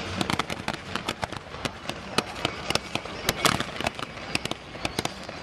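Fireworks display going off: a rapid, irregular crackle of sharp pops, several a second, with one louder burst a little past halfway.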